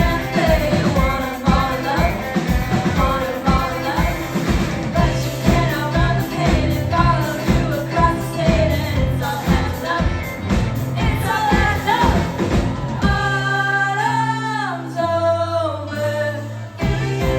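Live band playing a song, with a lead singer over drums, bass and guitar. About two-thirds of the way through, the drums drop out and the singer holds a long, bending note over a sustained bass; the beat comes back near the end.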